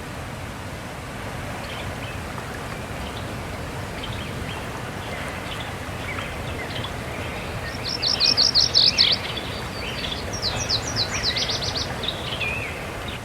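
A songbird singing two quick bursts of rapid, high, falling notes, one about eight seconds in and another shortly after, with fainter chirps before them, over a steady background hiss.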